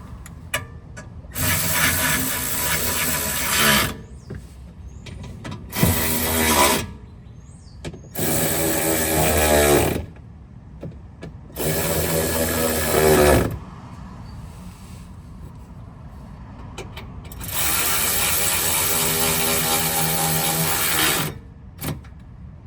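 Cordless ratchet with a 10 mm socket running in five bursts of one to three and a half seconds, driving the bolts of a car's plastic lower undercover. Its motor whine shifts in pitch within some bursts.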